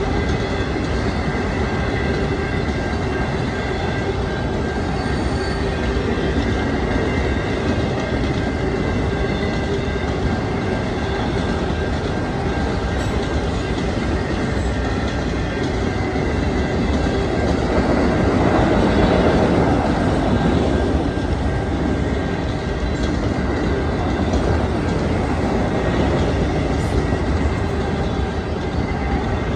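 Freight train of autorack cars rolling steadily past a grade crossing: a continuous rumble and clatter of steel wheels on rail. A thin steady high squeal runs through it, and it swells louder about two-thirds of the way through.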